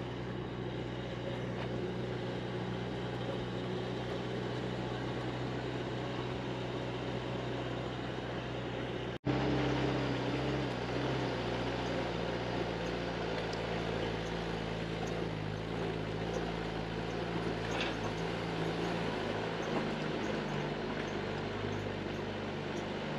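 Steady engine and road noise of a Mitsubishi Pajero off-roader heard from inside its cabin while driving. The sound breaks off for an instant about nine seconds in, then goes on a little louder.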